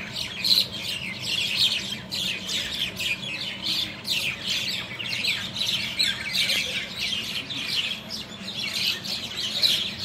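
A flock of common mynas calling: a continuous chatter of many overlapping harsh squawks and chirps.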